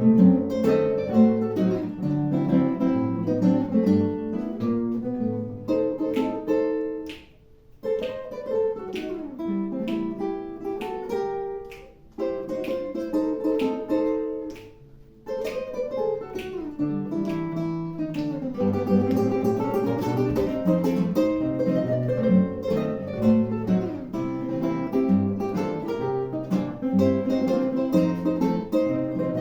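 Acoustic guitar playing a plucked piece of notes and chords, with short breaks in the playing about 7 and 15 seconds in.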